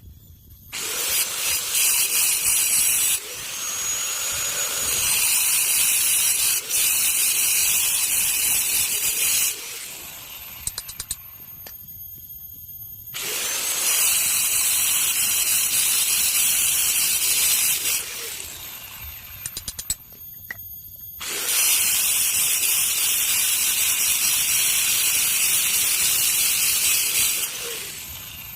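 A handheld power tool running in three long spells of several seconds each, with short pauses between: a loud, harsh, high-pitched grinding noise.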